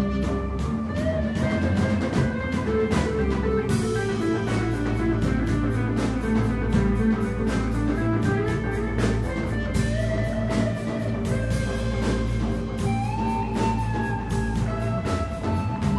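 Instrumental rock played live by a small band: electric guitar lines over a steady drum-kit beat with busy cymbals and sustained low notes underneath.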